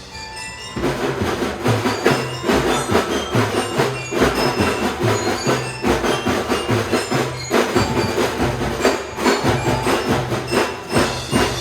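Children's marching drum band playing: a steady beat of drums with a high, bell-like melody over it, resuming after a brief pause under a second in.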